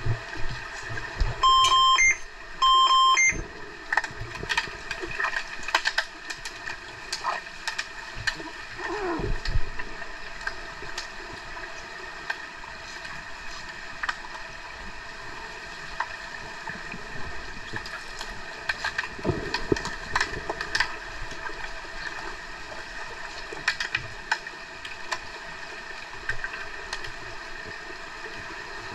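An underwater referee's sounder gives two short electronic beeps about a second apart near the start, heard through the water. Scattered sharp clicks and knocks follow throughout over a steady underwater background.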